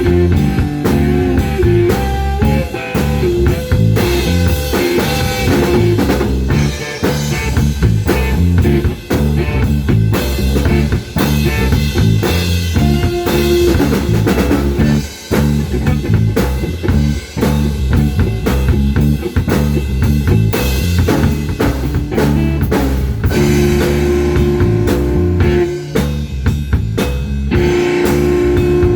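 Instrumental rock music with electric guitar, bass and a steady drum-kit beat.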